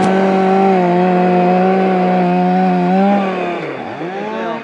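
Chainsaw running at high revs with a steady engine note. Near the end its pitch drops sharply and climbs back up.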